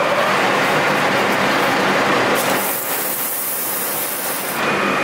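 Colchester Master 2500 lathe spinning with a strip of abrasive cloth held against the turning metal workpiece, a steady running noise with a bright rasping hiss added from about halfway through until near the end as the cloth rubs the surface.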